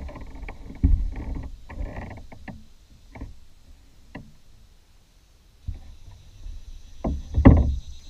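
Irregular knocks and bumps of handling in a plastic kayak, with low rumble between them; the loudest thumps come about seven seconds in.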